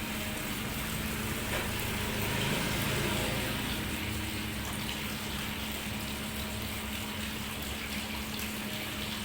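Water running and splashing steadily while a small dog is bathed, with a low steady hum underneath.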